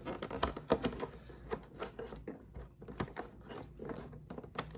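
Cardboard advent-calendar boxes and toy packaging being handled: irregular light clicks, taps and rustles.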